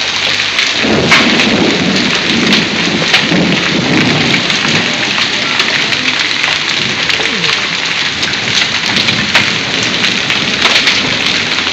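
Heavy downpour of rain and hail, a dense steady hiss peppered with sharp ticks of hailstones striking hard surfaces. A low rumble of thunder rolls in about a second in and fades over the next few seconds.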